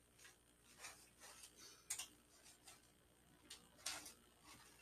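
A few faint, scattered ticks of sprinkles being shaken from a small plastic container onto an iced cake in a baking pan.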